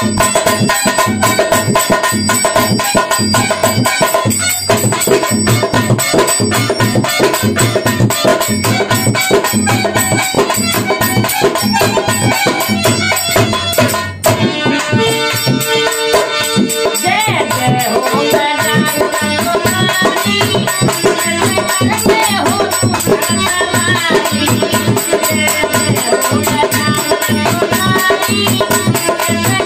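Rajasthani folk devotional bhajan music: dholak drum keeping a quick steady beat with harmonium, broken by a short dip about halfway through, after which a melody with bending pitch comes in over the rhythm.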